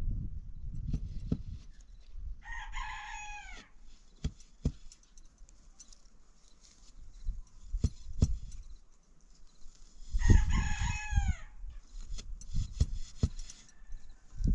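A rooster crows twice, about seven seconds apart, each crow about a second long with its pitch dropping at the end. Scattered sharp knocks and taps sound between the crows.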